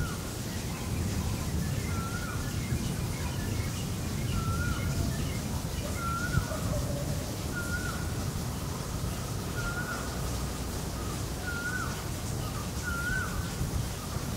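A bird calling over and over, a short clear note that rises and then drops, about every two seconds, over a steady low rumble.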